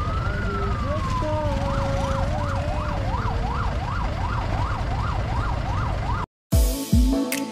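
A siren sounds over a steady low rumble. It gives one slow rising and falling wail, then switches to a fast yelp, up and down about three times a second. It cuts off abruptly about six seconds in, and music with heavy bass thumps begins.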